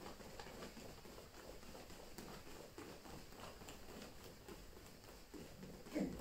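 Faint, irregular patter of bare feet stepping and shuffling on gym mats during boxer-style footwork, with a louder thump near the end.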